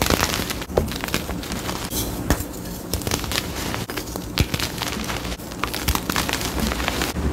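Blocks of gym chalk crushed and crumbled in the hands, giving a rapid run of dry crunches and crackles as pieces break off into loose powder.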